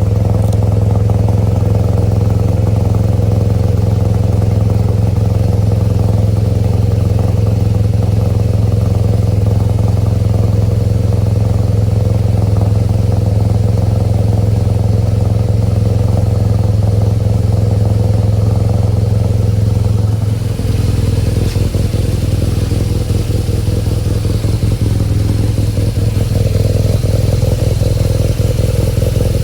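BMW R nineT Pure's boxer-twin engine running steadily. About twenty seconds in the sound changes and turns less even.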